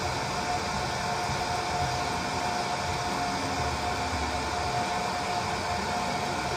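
Small battery-powered bubble machine's fan motor running steadily: a constant whirring hiss with a thin, steady whine.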